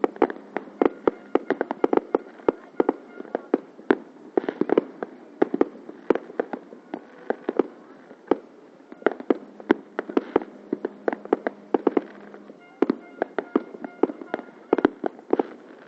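Many New Year's fireworks going off: a dense, irregular stream of sharp bangs and pops, several a second, over a background of distant crackling.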